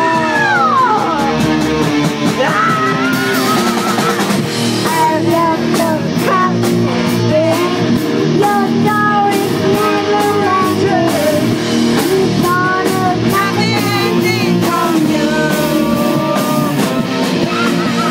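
A young girl singing a rock song into a microphone, backed live by a rock band with guitar and drum kit. Her held note slides down in pitch about half a second in, then the sung melody carries on over the band.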